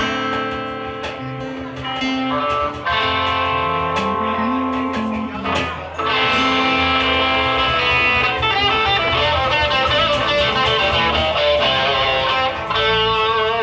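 Live band music led by guitar, with a moving bass line under sustained chords, played without singing; the sound fills out about six seconds in.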